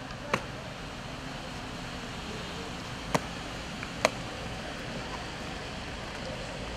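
Drill boots stamping on a wet paved parade ground: three sharp stamps, the first about a third of a second in and two more about three and four seconds in, over a steady outdoor hiss.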